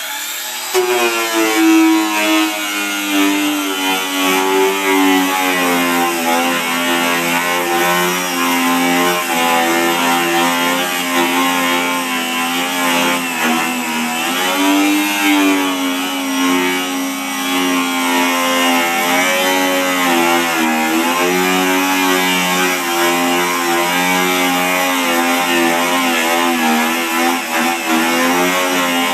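Angle grinder driving a Wellington Rolabrader drum with a non-woven fleece (Scotch-Brite type) roller, scrubbing rust off the steel tub of a wheelbarrow: a steady motor whine with an abrasive scouring hiss, its pitch wavering as the roller is pressed into the metal.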